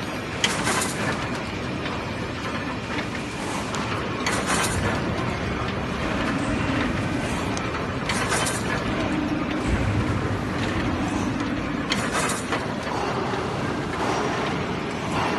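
ZRS 7-1150 single-knot fishing net machine running: a steady mechanical clatter, with a louder hissing rush that comes round about every four seconds.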